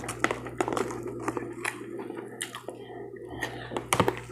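Close-up chewing of crunchy cereal in milk: irregular wet crunches and crackles.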